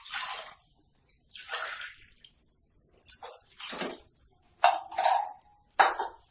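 Water poured from a tumbler into a cooking pot in a series of short splashing pours, with clinks of the vessels knocking together.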